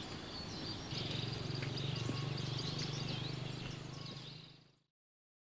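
Countryside ambience: small birds chirping here and there over a low steady hum that comes in about a second in, all fading out about four and a half seconds in.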